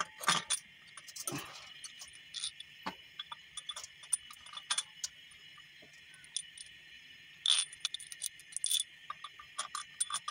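Small steel nuts and washers clinking and tapping as they are handled and set onto the studs of a Hyundai D4BB diesel's cylinder head, with scattered light clicks and a few louder clinks in the second half. A steady high hiss runs underneath.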